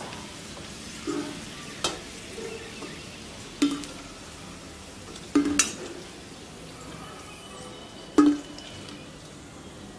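Small puffed puris frying in hot oil with a steady sizzle. A perforated metal slotted spoon stirs and turns them, knocking sharply against the pan about six times.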